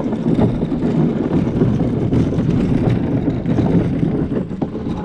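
A plastic Lifetime Yukon Angler sit-on-top kayak dragged over gravel on its keel wheel: continuous crunching and scraping of stones under the wheel and hull. The wheel is clogging with gravel, which the owner says jams in the hollows on each side of the wheel.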